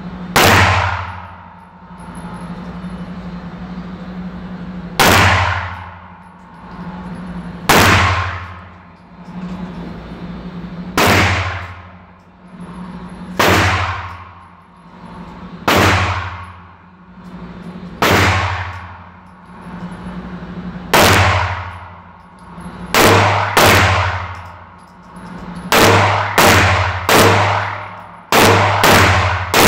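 Semi-automatic pistol fired in an indoor shooting range: sharp shots with echoing tails, one every two to three seconds at first, then faster in quick pairs and strings near the end.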